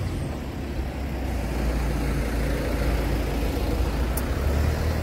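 Steady low hum of an idling vehicle engine, with a short click about four seconds in.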